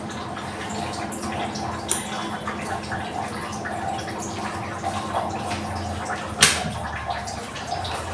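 Hands pressing and patting a stuffed dough ball flat on a marble rolling board and sprinkling it with dry flour: small soft taps and rustles, with one sharper click about six seconds in, over a steady background hum.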